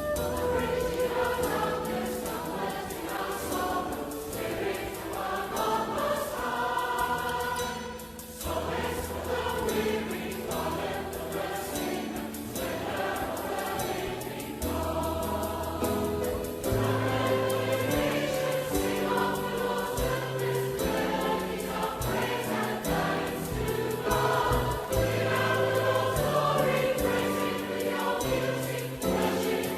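A choir singing a hymn with instrumental accompaniment, with a short lull about eight seconds in.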